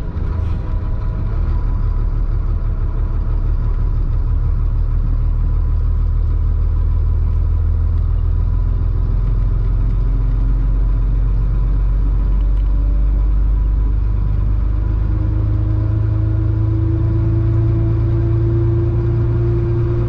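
Chenglong concrete mixer truck's diesel engine running while driving, heard from the cab, with a thin steady whine above it. In the last few seconds the engine note rises as the truck picks up speed.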